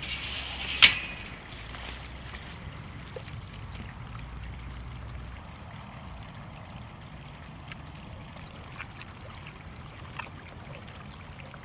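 A single sharp metal clank about a second in as the lockout door of a tiger enclosure is pulled open by its cable, followed by a low steady rumble with a few faint clicks.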